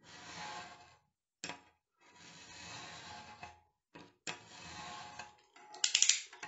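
Snap-off utility knife blade drawn along a ruler, scoring thin cardboard without cutting through: three scraping strokes of about a second each, with short clicks between them. Near the end, a louder clatter of sharp knocks.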